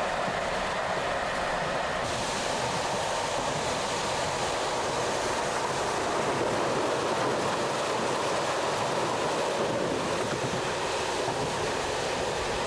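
Steady rushing noise of a passenger train running, heard from on board. It turns hissier about two seconds in.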